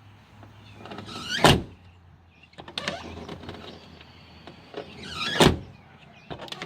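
Jeep Cherokee XJ door slammed shut twice, about a second and a half in and again about five seconds in, with clicks of the push-button handle and latch between the slams as it is opened again. The door is being tested after its exterior handle's adjustment bolt has been slid forward and tightened.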